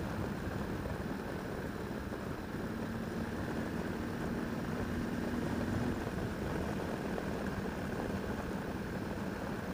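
Motorcycle engine running steadily while riding, over a steady rush of wind and road noise; its note holds clearer for a few seconds about a third of the way in.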